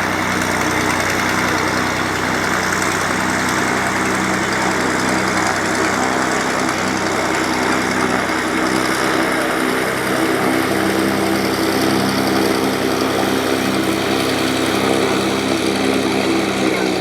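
Light piston aircraft engine running steadily, a constant drone with a few steady pitched hum tones.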